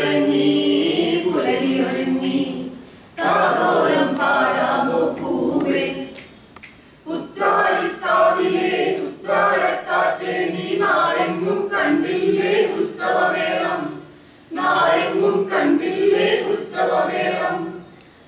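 A small mixed group of men and women singing an Onam song (Onappattu) unaccompanied, with a woman's voice on a microphone leading. The song comes in sung phrases with short breaks between them.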